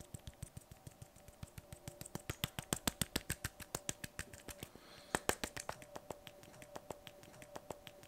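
Fingertip tapping quickly and lightly on an open jar of hair texture clay, several sharp little clicks a second that grow louder in the middle, over a faint steady hum.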